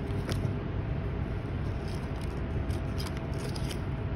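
Steady low background rumble with a faint steady hum and a few light clicks.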